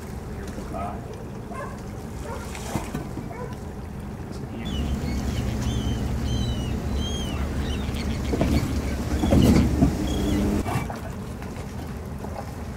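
A low engine hum swells in about five seconds in, peaks, and dies away about two seconds before the end, with short high bird chirps over it. Faint scuffs and clicks come before it.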